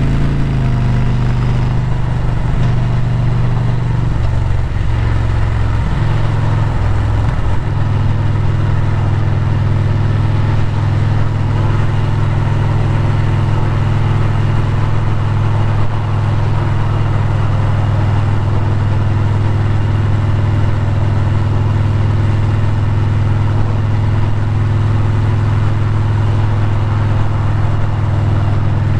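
Motorcycle engine running under way at highway speed, with wind and road noise. The engine note shifts a few times in the first several seconds, then holds steady at a cruise.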